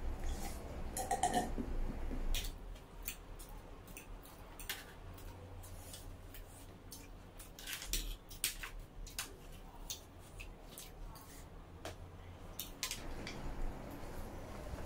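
Metal forks and spoons clinking and scraping against metal trays of noodles, in scattered, irregular clicks. There is noodle slurping near the start.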